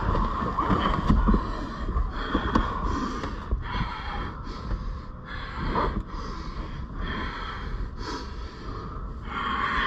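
Heavy, laboured breathing of grapplers straining against each other in a car's back seat: quick, noisy breaths in and out, with low bumping and rustling of bodies against the seats.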